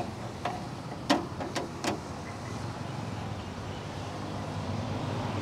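Spatula knocking and scraping against a large frying pan about six times in the first two seconds as a vegetable and noodle stir-fry is tossed, over a steady low rumble.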